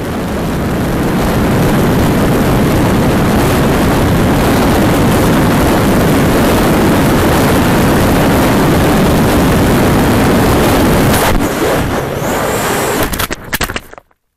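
Loud, steady rush of wind and propeller noise from a camera mounted on an RC flying wing in flight. Near the end it turns uneven and broken as the wing comes down in long grass, then cuts off suddenly.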